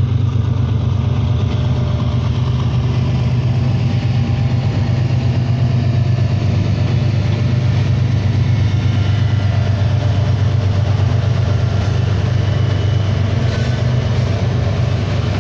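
Several BNSF diesel-electric locomotives passing at the head of a loaded coal train, their engines running with a loud, steady low drone.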